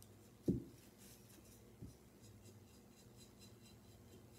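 Paintbrush bristles dry brushing paint onto a ceramic figurine, faint quick scratchy strokes on the ceramic. A low thump about half a second in and a softer one near two seconds.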